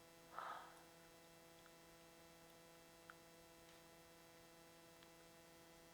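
Near silence with a steady faint electrical hum. A brief soft noise comes about half a second in, and a faint tick a few seconds later.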